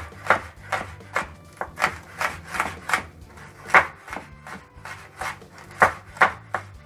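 Kitchen knife dicing red and green bell peppers on a wooden cutting board: a run of quick, uneven chops, about two to three a second, each blade stroke knocking onto the wood.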